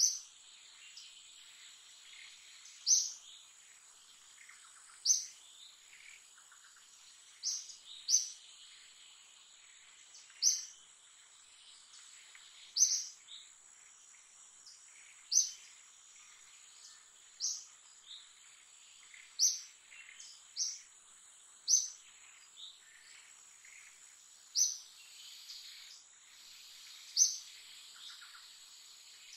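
A bird giving a short, sharp, high call every two to three seconds, over a steady high-pitched insect drone and faint chirping.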